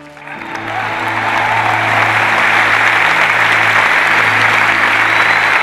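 Large auditorium audience applauding, swelling over the first second or two and then holding steady and loud.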